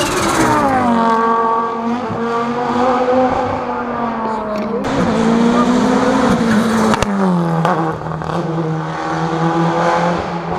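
Rally car engine running hard on a hill climb. Its pitch falls over the first second or so, rises and falls again mid-way, then drops about seven seconds in and holds steady.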